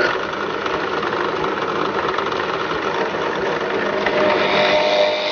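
Benchtop drill press running steadily with a spade bit chucked. The motor noise is loud and even, and a faint higher tone joins it about four seconds in.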